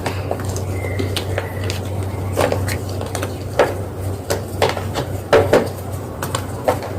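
Gym chalk being crushed: irregular crisp crunches and snaps, the loudest cluster a little past the middle, over a steady low hum.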